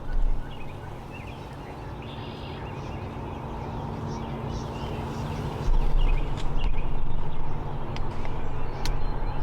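Wild turkeys calling faintly in the distance over a steady low rumble that grows louder about six seconds in, with a couple of sharp clicks near the end.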